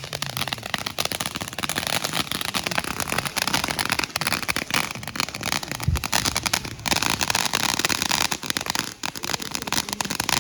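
Fireworks going off in a dense, continuous run of rapid pops and crackles, with a single low thump about six seconds in.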